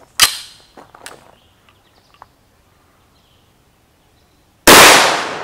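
A single loud 9mm shot from a CZ Scorpion Evo 3 S1 carbine firing L7A1 ammunition, about four and a half seconds in, with a long echoing tail. Near the start there is a sharp clack and then a few light clicks as the carbine is handled.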